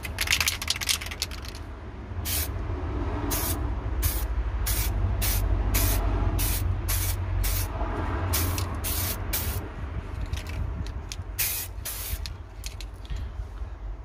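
Aerosol can of Rust-Oleum stove paint spraying: a long hiss at the start, then about a dozen short bursts, each under half a second, as a light first coat is dusted on. A steady low rumble runs underneath.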